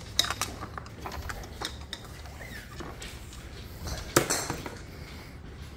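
Golf clubs being handled in a stand bag: scattered clicks and clinks of shafts and metal heads knocking together as sticks are slid in and a club is drawn out. The sharpest knock comes about four seconds in.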